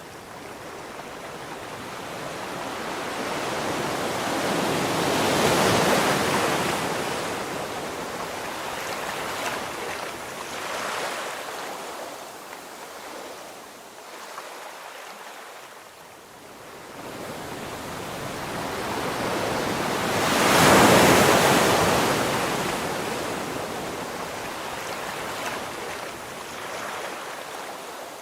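Sea waves breaking and washing in, rising and falling in slow surges, with two large swells, about six seconds in and again about twenty-one seconds in, and a smaller one between.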